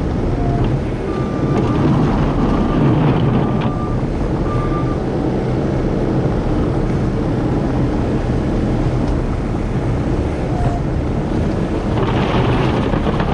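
Dump truck heard from inside the cab while driving: a steady deep diesel engine rumble with road noise, and a brief hiss near the end.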